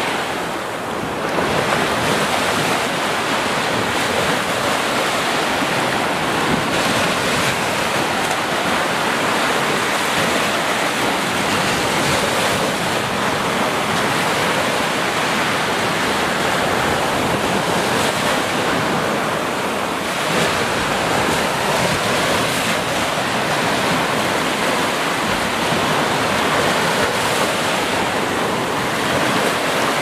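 Small sea waves breaking and washing up a sandy beach: a steady rush of surf with slight swells.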